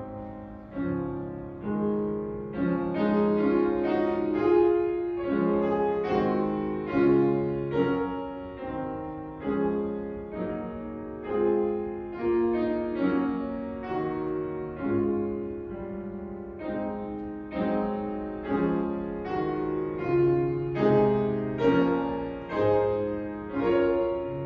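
Piano playing a slow instrumental piece in chords, each note struck and fading away.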